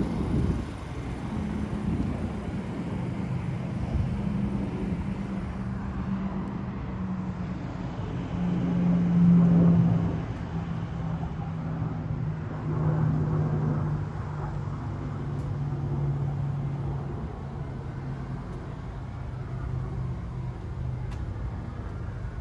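A motor engine's steady hum that slowly drops in pitch and swells loudest about nine seconds in, over general traffic noise.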